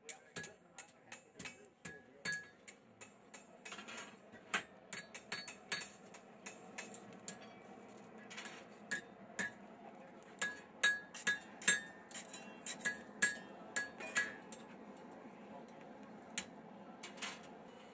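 Hammer blows ringing on a steel anvil, light and fairly quiet, coming in uneven runs of two or three strikes a second, each a sharp clink with a short bright ring; the blows grow louder in the second half and thin out near the end.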